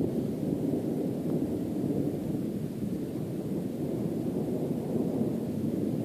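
Distant thunder from a thunderstorm, rumbling steadily without a break.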